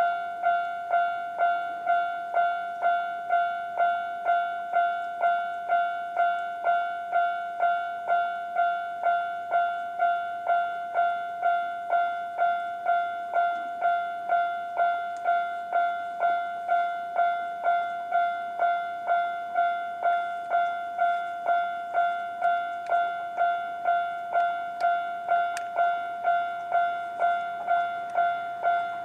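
Japanese railway level crossing's electronic warning bell ringing in its normal tone: a steady, evenly repeated ding about one and a half times a second, each strike fading quickly, signalling that a train is approaching.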